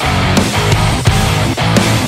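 Loud heavy rock music with a steady, driving drum beat.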